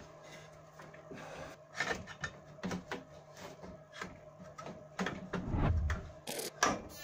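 Irregular plastic-and-metal knocks, clicks and scrapes as a car's turbo intercooler is worked loose and pulled out of the front end. A heavier sliding shuffle comes about five seconds in, over a faint steady hum.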